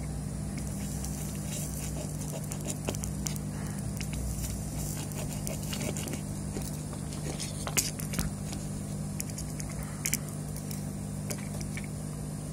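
A soldering iron desoldering a surface-mount chip on a power-supply board gives faint crackling and small clicks as the solder melts and the tip and blade touch the pins, over a steady low hum. A sharper click comes about eight seconds in, and two more just after ten seconds.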